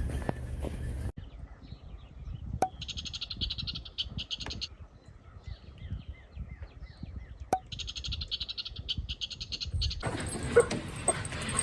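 An animal's rapid, high-pitched pulsed trill, heard twice for about two seconds each, with faint short chirps and a few sharp clicks in between.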